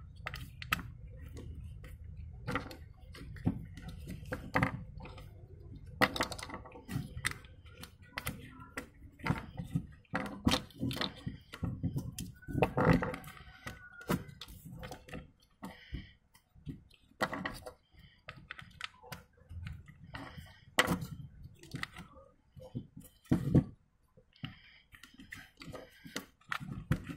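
Chunky plastic toy building bricks clicking and knocking as they are handled, pressed together and set down, in irregular sharp clicks with pauses between.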